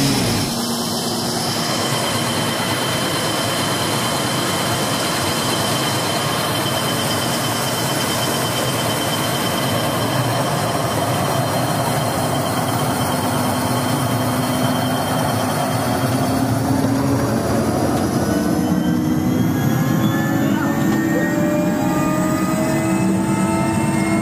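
Mi-8 helicopter's twin turbine engines and main rotor running up close, a loud steady din with several high whining tones. About two-thirds of the way through, a set of whines rises steadily in pitch as the engines speed up.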